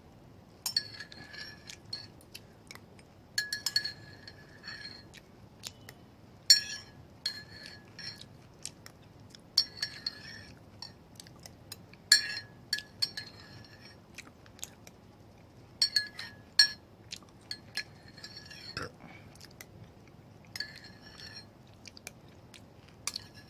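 A utensil scraping and clinking against a ceramic dish in repeated strokes every two to three seconds, each stroke a sharp clink followed by a short ringing squeak, as food is scooped and dished up.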